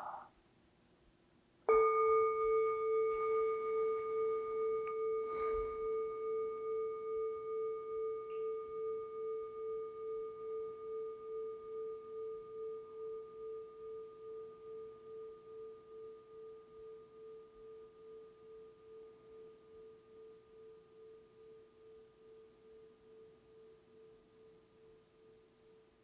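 A meditation bell is struck once, about two seconds in. Its single low ringing tone, with fainter higher overtones, fades slowly over the following twenty-odd seconds, wavering steadily about twice a second.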